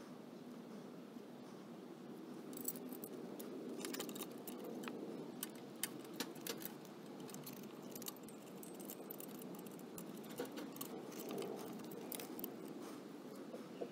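Light metallic clinks and rattles, scattered irregularly, as a perforated steel mounting stay is handled and fitted against a motorcycle's frame and tandem step stay.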